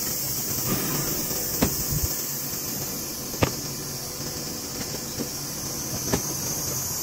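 A steady mechanical running noise with a few sharp clicks through it.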